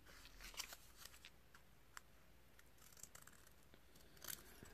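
Faint, scattered snips of small scissors cutting a paper template, with a slightly louder snip near the end.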